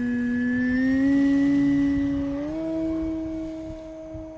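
Electric motor and propeller of an E-flite Carbon-Z Cessna 150T RC plane whining on the takeoff run. The pitch rises in steps as the throttle opens, then the sound fades as the plane climbs away.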